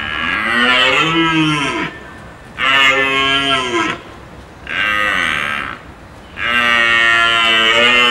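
Bull elk calling four times in a row, each call one to two seconds long, the pitch arching up and falling away, with a high reedy edge over a low bellow.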